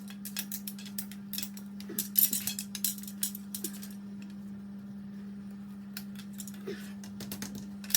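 Irregular light clicks, taps and rattles of a delivery bag's support sticks being plugged into their connectors to build its cube-shaped frame, with a pause of a couple of seconds near the middle. A steady hum runs underneath.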